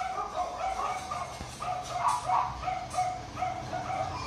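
Motor oil glugging out of a 4-litre plastic jug into a funnel, air gulping back into the jug in quick, regular gurgles, about four a second.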